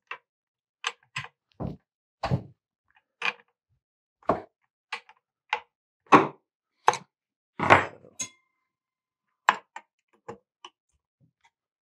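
Scattered metal clicks and clinks of a combination wrench (scrench) on a Stihl MS660 chainsaw's chain tensioner screw and bar nuts as the bar and chain are loosened for removal. About a dozen separate taps at irregular intervals, the loudest about halfway through and a moment later.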